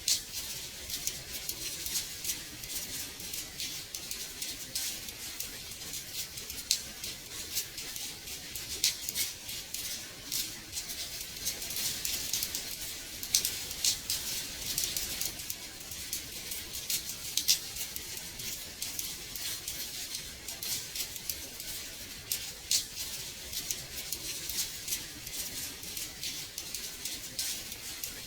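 Gentle rain tapping on window glass: a steady soft hiss with many small, irregular drop ticks.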